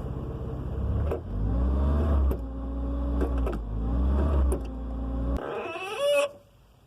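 Car engine running, with several sharp clicks from the clutch pedal as it is pressed and released. The click is put down to a worn clutch-pedal pivot bolt or a badly adjusted pedal. The engine sound cuts off suddenly near the end, followed by a brief squeal.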